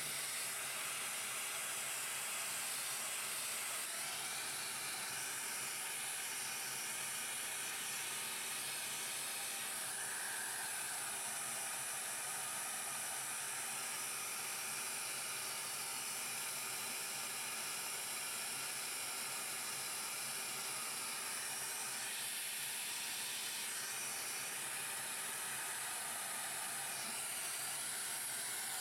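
Vacuum cleaner running steadily with an even hiss, sucking up dust and fluff.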